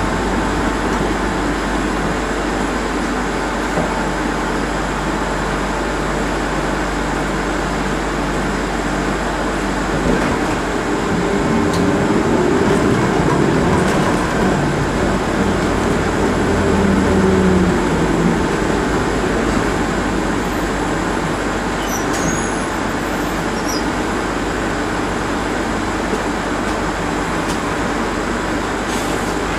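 Steady running noise inside a moving electric city transit vehicle, with a low hum throughout. Around the middle, a motor whine glides up and then back down in pitch.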